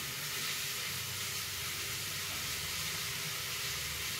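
Steady sizzling hiss of an onion, tomato and spice masala frying on a gas stove, tomatoes just added to the fried onions.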